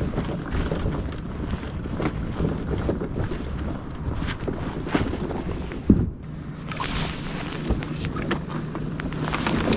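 Footsteps crunching on a gravel boat ramp as a plastic fishing kayak is moved down it, with a sharp thump about six seconds in. Then water splashes and sloshes around the hull at the launch, over a steady low hum.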